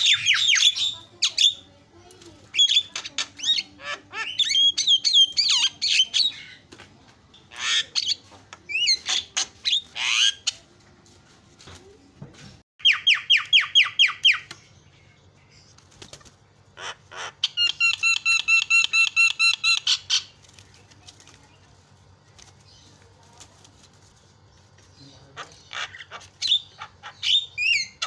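Javan myna singing a varied run of loud whistles, harsh chattering calls and fast rattling trills of repeated notes, with a quiet pause of a few seconds late on.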